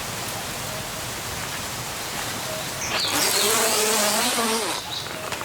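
Steady wind rushing through forest trees. About three seconds in, a louder rushing sound with a low hum comes in abruptly and fades after about two seconds.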